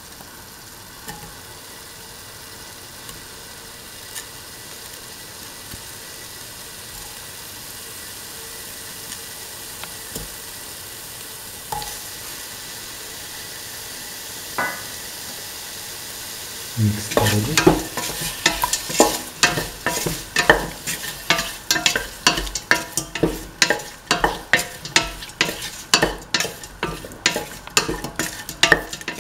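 Duck meat and spices sizzling quietly in a stainless-steel pot, with a few single knocks. A little over halfway through, stirring starts: the utensil scrapes and knocks against the metal pot about three times a second over the frying.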